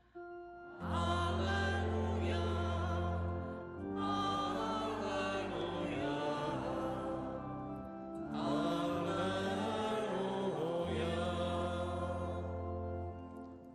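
Sung Alleluia acclamation before the Gospel in a Catholic Mass: singing with organ accompaniment over a steady low sustained note, in three phrases.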